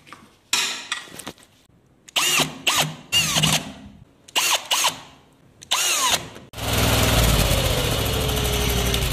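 Several short rubbery squeaks from the blue drain-jetter hose as it is pulled out of the drain pipe, then, about two-thirds through, the drain jetter's engine starts running loudly and steadily with a slowly falling whine.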